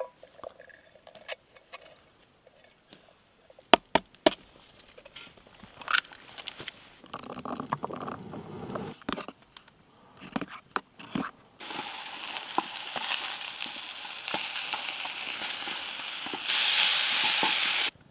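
Camp cooking: a few sharp clinks and knocks, then a spoon stirring pancake batter in a metal mug, then food sizzling steadily as it fries in a pan, louder for the last second or so before it cuts off.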